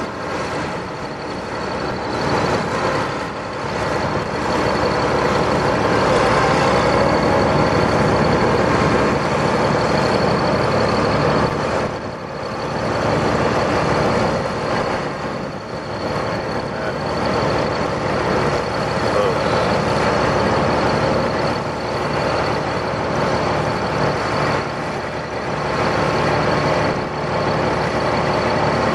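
A large engine running steadily, with a thin high whine over it and small swells and dips in level.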